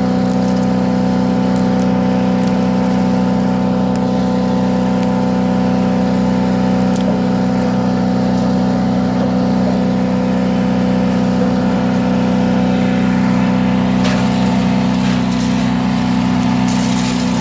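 Predator chipper/shredder's gasoline engine running steadily at full speed while branches are fed in, with sharp cracks here and there as the wood is chipped. The chipping gets busier near the end.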